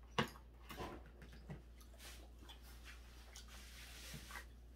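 A sharp tap as a plate is set down on the table, followed by faint clicks of wooden chopsticks picking food from the plate.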